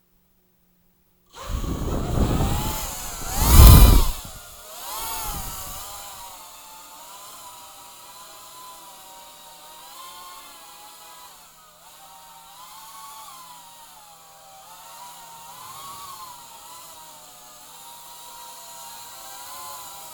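EMAX Tinyhawk 2 Race micro FPV quadcopter in flight, heard from a camera mounted on the drone. After a second and a half of silence comes a loud rush of noise for about two and a half seconds. Then the motors and propellers keep up a thin whine whose pitch rises and falls with the throttle.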